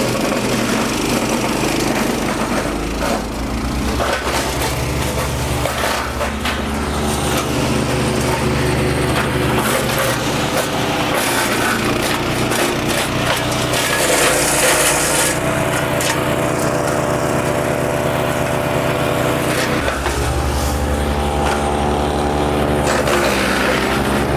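MechMaxx P4206 wood chipper running under load, its engine drone steady while branches are fed in and ground up with an uneven crunching and crackling. The engine pitch dips and recovers a few times, most clearly about twenty seconds in, as the chipper bites into heavier wood.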